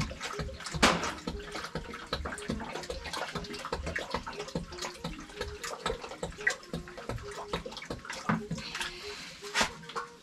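Water being poured off and splashing in a basin as pigeon peas are washed by hand, with scattered small knocks and clicks.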